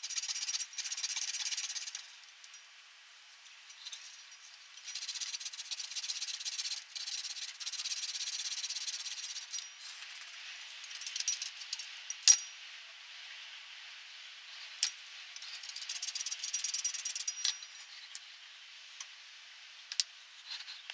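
Hand saw rasping through a small block of olive burl wood in bursts of quick strokes, then the saw and the cut pieces being handled on the bench with a few sharp clicks and taps.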